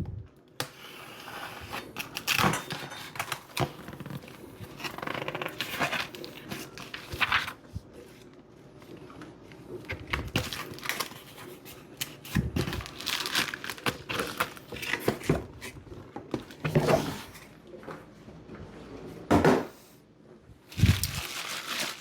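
Packaging being handled and unwrapped while a new soap mold is unboxed: irregular crinkling and rustling, with occasional short knocks.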